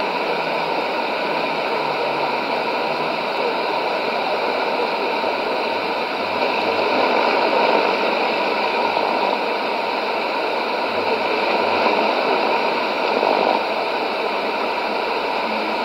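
Shortwave radio static: a steady hiss from a Sony ICF-2001D receiver tuned to 6160 kHz AM. The noise fills the channel with no clear programme audible above it.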